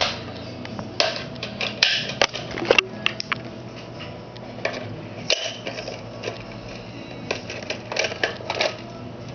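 Irregular plastic clicks, knocks and rattles of a toy foam dart rifle being handled and its pump action worked, in two bursts, after a dart has jammed in it.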